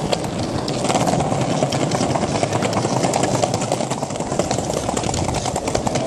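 Penny board's wheels rolling over stone paving slabs: a steady rumble broken by rapid clicks as the wheels cross the joints between the slabs.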